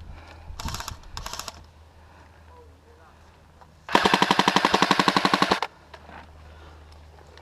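Airsoft electric gun firing one full-auto burst of about a second and a half, a rapid, even rattle of about fifteen shots a second, a little after halfway. Two brief, fainter rattles come before it.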